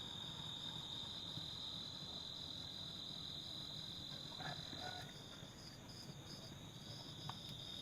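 Faint insect chirring: a steady high trill with a rapidly pulsing trill above it. The steady one weakens about four seconds in.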